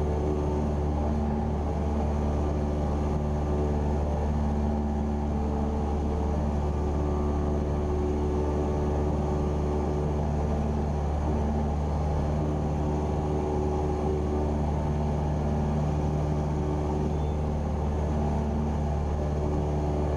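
Cessna 172R Skyhawk's four-cylinder Lycoming IO-360 engine and propeller droning steadily in flight, heard from inside the cockpit.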